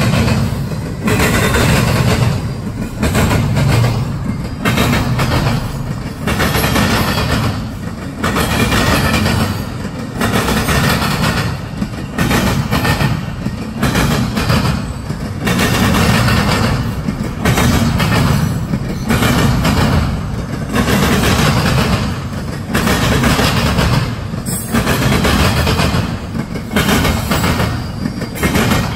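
Double-stack intermodal train rolling past, its well cars' wheels clattering over the rails in a repeating rhythm of surges about once a second.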